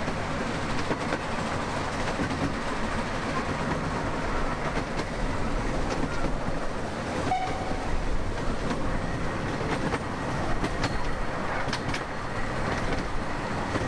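A miniature railway train running, heard from an open carriage behind its steam locomotive: a steady rumble and rattle of wheels on the track, with a few light clicks.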